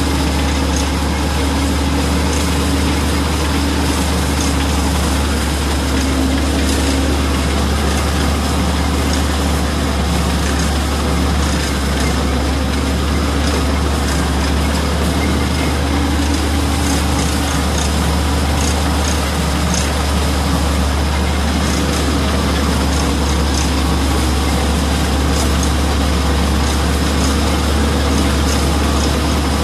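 Tractor driving a four-row cotton stalk shredder, running steadily as the shredder chops cotton stalks: an even, unbroken low engine hum with a haze of chopping noise and scattered faint ticks of flying debris.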